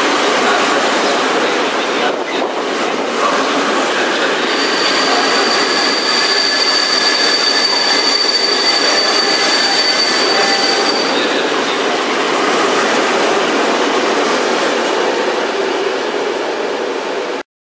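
Freight train of flat wagons loaded with steel bars rolling past at speed: a steady, loud rumble of wheels on rail, with a high, steady wheel squeal from about four to eleven seconds in. The sound cuts off suddenly near the end.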